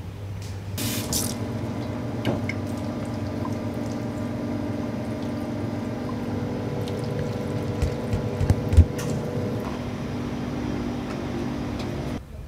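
Water being poured from a stainless steel jug into plastic trays of cut fruit, over a steady machine hum. A few dull knocks about two-thirds through, the last the loudest.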